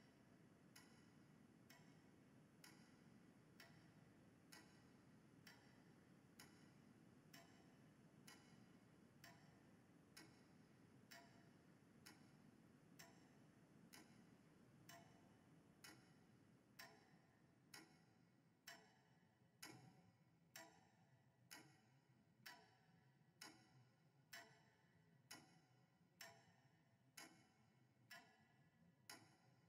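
Faint, steady ticking, about one tick a second, over a low hum. The hum drops away a little past halfway, leaving the ticks clearer.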